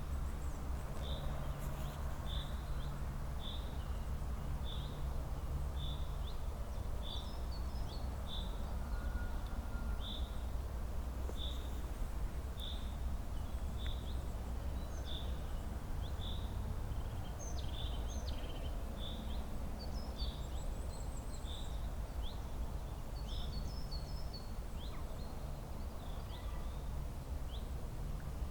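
Spring birdsong: one bird repeats a short, high note about once a second, while other birds add brief chirps, more of them in the second half. A steady low rumble of background noise runs underneath.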